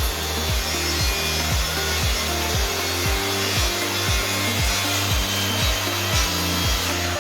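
A power saw cutting wood, a steady hissing cut that stops at the very end, under background music with a steady beat of about two thumps a second and a moving bass line.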